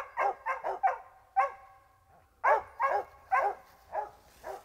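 Mountain cur hunting dogs barking up a tree in quick runs of short, sharp barks, about a dozen in all, with a brief pause just before the middle. The barks are treeing barks: the dogs are signalling that they have a squirrel treed.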